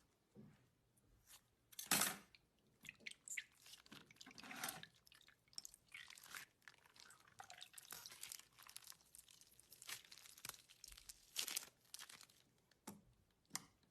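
Slime being pressed and squished by hand, giving a run of small crackling clicks and pops with some wet squelching, the loudest pop about two seconds in.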